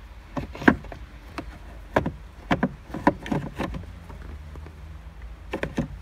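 Plastic parts of a car's gear shifter assembly clicking and knocking as they are handled and pressed into place in the centre console: a string of short, sharp clicks, the loudest about two-thirds of a second in, over a faint steady low hum.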